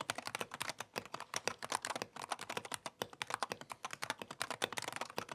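Fast, continuous typing on a Wooting 60HE keyboard fitted with hand-lubed Gateron Lekker magnetic switches and PBT keycaps in a Tofu60 Redux case: a dense run of keystroke clacks. The owner calls the sound really terrible.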